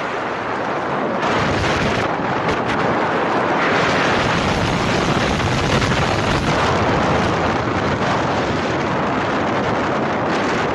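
Strong sandstorm wind rushing steadily and buffeting the microphone.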